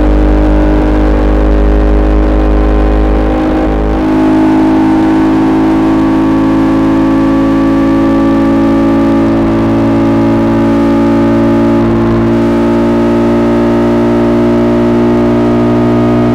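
KTM Duke 200's single-cylinder engine running through an SC-Project SC1-R exhaust with a custom powerbomb header while the bike is ridden. The engine note changes about four seconds in, then holds at a steady, nearly constant pitch.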